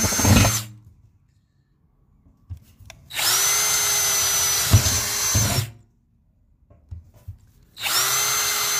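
Ryobi cordless drill with a 23/64-inch bit drilling holes through the bottom of a galvanized steel tub, in separate runs of about two and a half seconds with quiet gaps between. A run ends just after the start, a full run fills the middle, and another begins near the end. Each run is a steady high motor whine with a few sharp knocks near its end.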